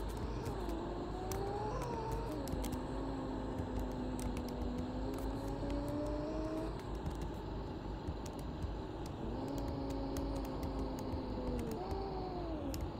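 Mercedes-Benz OC500LE city bus heard from on board: a steady low rumble with a pitched drivetrain whine that rises and falls with the bus's speed, breaking in pitch about two seconds in and sliding down near the end as it slows. Frequent light clicks and rattles sound from the cabin throughout.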